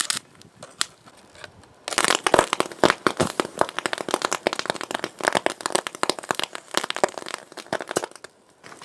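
Rapid, dense crackling and popping of a high-current DC arc from a copper rod fed by four lead-acid batteries in series, as it burns through a motherboard and sets it on fire. A short burst at the very start, then it runs thick from about two seconds in until just before the end.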